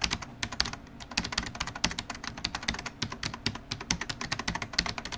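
Computer keyboard typing sound effect: a fast, uneven run of key clicks.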